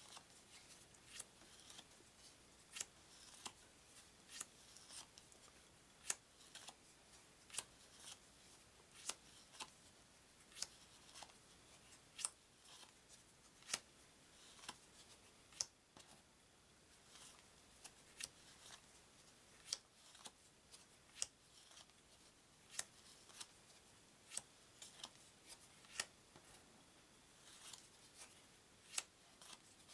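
Game cards being flipped off a stack one at a time: a short, sharp click as each card comes off, about one or two a second, with a faint rustle of card between.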